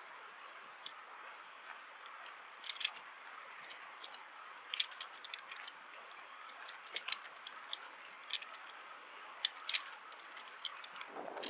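A bicycle in motion rattling and clicking irregularly over a faint steady hiss of riding noise. Near the end a louder rushing noise comes in.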